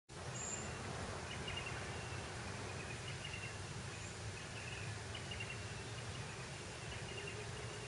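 Outdoor ambience: a steady low background hum with faint, short high chirps from small birds, recurring about once a second.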